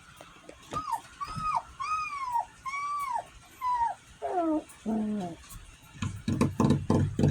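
Three-week-old puppies whimpering: a series of about six high, arching whines, then a few lower cries that fall in pitch. From about six seconds in, a rapid run of low thumps.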